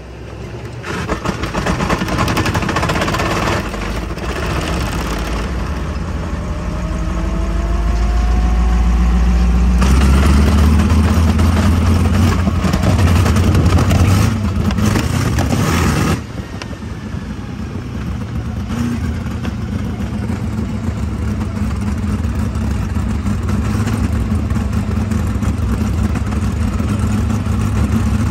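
All-aluminium, fuel-injected 410 cubic-inch V8 of a sprint car being push-started and firing up. It rises in pitch and runs loud through the middle, then drops suddenly about halfway through and runs on steadily.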